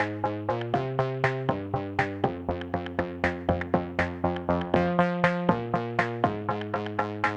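Background music: a light tune of quick pitched notes, each struck and dying away, about four a second.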